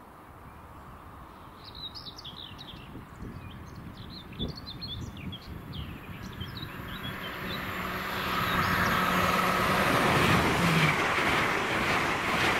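Small birds chirping, then an LNER Class 801 Azuma electric train approaching and passing. Its rush of wheels on rail and air swells from about six seconds in and becomes loud from about eight seconds in, with a steady low hum underneath.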